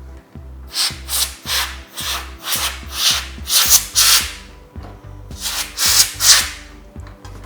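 Canned air blowing dust out of a PC case in quick short bursts, about three a second, with a brief pause midway.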